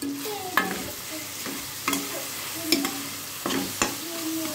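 Spatula stirring and scraping chopped onions and tomatoes frying in oil in a kadhai, knocking sharply against the pan several times over a gentle sizzle on low heat.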